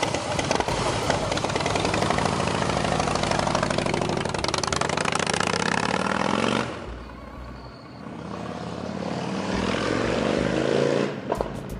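Harley-Davidson Breakout's V-twin engine breathing through a newly installed aftermarket exhaust, revving and pulling away, its pitch rising as it accelerates. The sound drops off suddenly about seven seconds in. A second rising acceleration follows and cuts off near the end.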